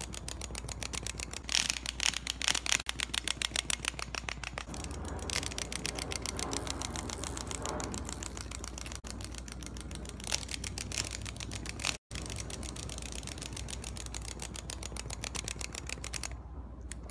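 Toy robot ducklings' mechanisms clicking rapidly and steadily as they move on a paper backdrop, with a louder, more spaced-out stretch of clicks between about one and a half and four and a half seconds in. A steady low hum lies underneath.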